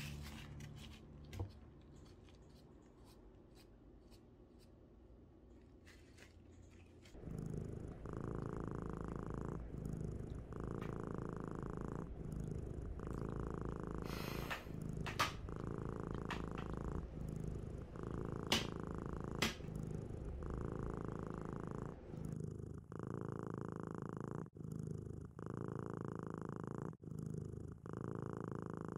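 Domestic cat purring close to the microphone, starting about seven seconds in: a steady purr that swells and eases with each breath, about every two and a half seconds. A few sharp clicks come around the middle.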